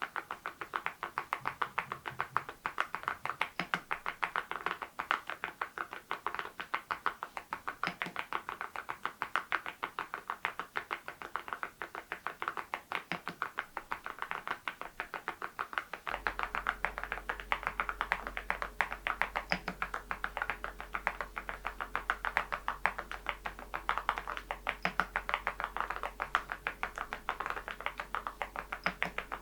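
Fast, continuous typing on a mechanical keyboard (the Adelie) fitted with Cerakey ceramic keycaps: a dense stream of bright, clacky keystrokes. A faint low hum comes in about halfway.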